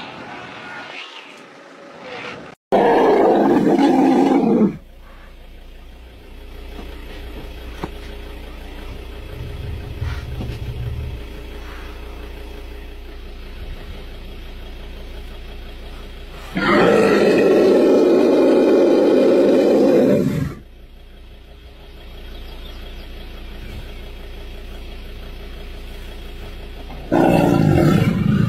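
Three loud animal roars, each two to four seconds long, starting and stopping abruptly, with a low steady hum between them.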